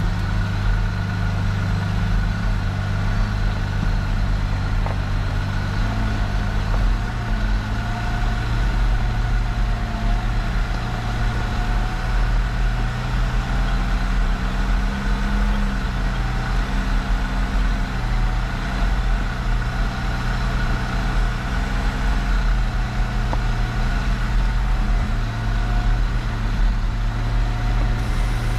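Motor vehicle engine running steadily with a low hum, its pitch shifting slightly now and then.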